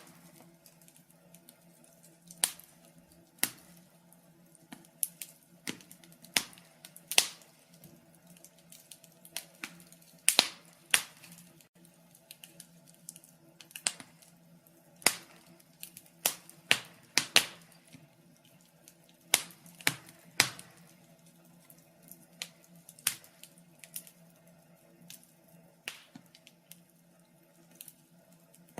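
Wood fire crackling: irregular sharp snaps and pops, some much louder than others, over a faint steady low hum.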